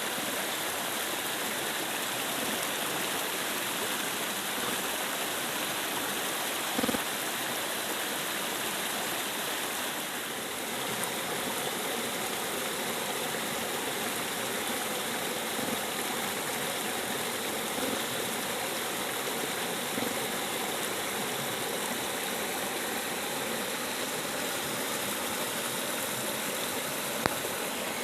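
River water rushing steadily. A faint steady hum joins about ten seconds in and holds, with a brief knock near seven seconds and a few sharp clicks near the end.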